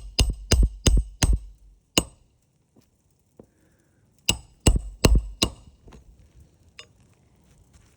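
Hammer striking nails or a metal tool on an asphalt-shingle roof, sharp ringing blows. There is a quick run of about five strikes, a pause of about two seconds, then four more strikes in a row.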